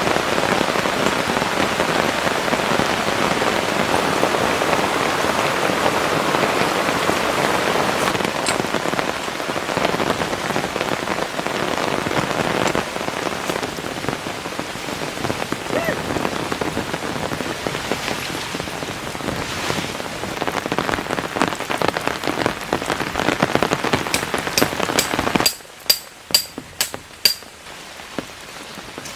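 Heavy rain pouring down in a steady dense hiss. Near the end it cuts off abruptly and a few sharp, separate taps follow, like single drops striking.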